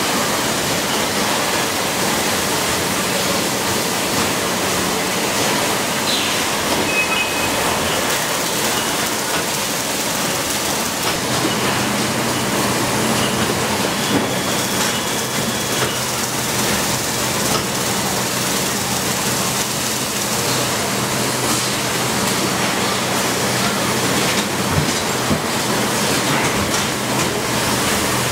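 Steady machinery noise of an automated motor stator production line, a broad even din with a low hum that comes in about eleven seconds in and a few faint clicks.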